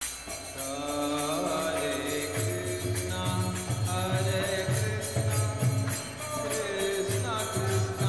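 Hindu devotional chanting set to music, with a steady metallic jingling in time and a low pulsing beat underneath.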